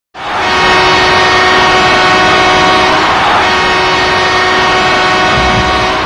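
Ice hockey goal horn sounding one long, loud, steady blast made of several tones at once, starting abruptly; it signals a goal scored.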